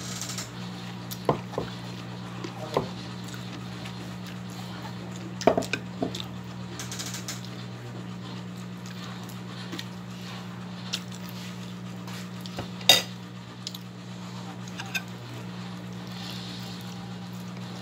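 Scattered clinks and knocks of dishes on a table as food is picked up by hand from a plate and a glass bowl, about eight in all, the sharpest about two-thirds of the way through. A steady low hum runs underneath.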